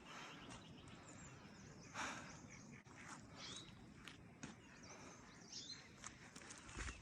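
Faint footsteps of a walker on a hill trail, with a few birds chirping briefly.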